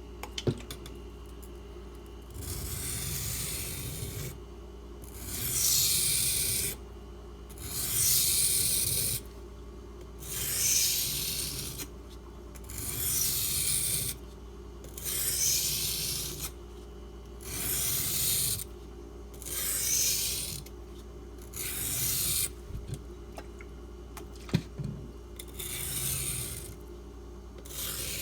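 A knife blade, a Spyderco Salt with H1 steel, being stroked across a wet water stone. About ten separate gritty, hissing sharpening strokes are heard, each a second or two long, with short pauses between them. A few small clicks come near the start and again late on.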